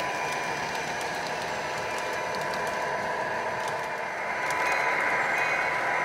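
Lionel O-gauge model trains running on their track: a steady whir of electric motors and metal wheels on rails, with scattered light clicks.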